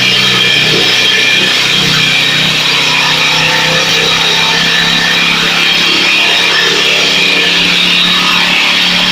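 Corn shelling machine running steadily, a loud, even mechanical drone with a high metallic hiss over it.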